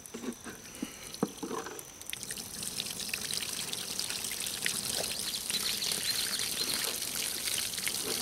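Wet crackling and squelching of a shot melon's pulp and juice as it is dug through by hand to find the bullet. It opens with a few knocks and gets louder from about two seconds in.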